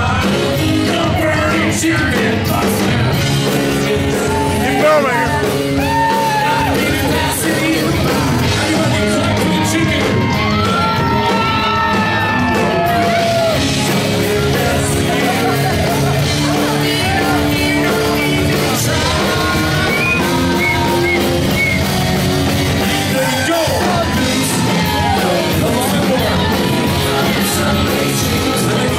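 Live band music with a man singing into a microphone, the crowd yelling and whooping over it.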